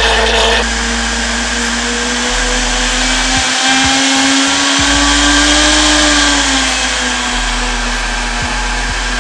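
High-performance commercial blender running steadily, blending mango, beetroot and milk into a milkshake. Its motor pitch rises a little about two-thirds of the way in and then settles back.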